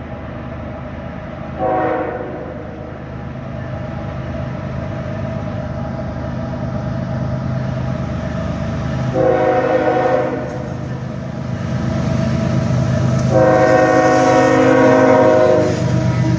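Freight train's diesel locomotive approaching and passing, sounding its multi-chime air horn three times: a short blast about two seconds in, a second blast of about a second near the middle, and a longer one near the end. The low rumble of the locomotive and train grows louder as it nears.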